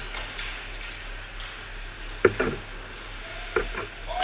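Ice hockey play at the boards: sharp knocks of sticks and puck, two quick double knocks, about halfway through and again near the end, over a steady rink hum.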